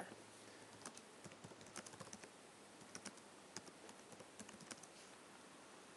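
Faint typing on a computer keyboard: irregular runs of short keystroke clicks as a sentence is typed.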